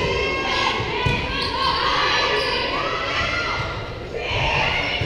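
Volleyball being struck during a rally, with sharp thumps of hand on ball about a second in and again near the end. Players' voices call out over them.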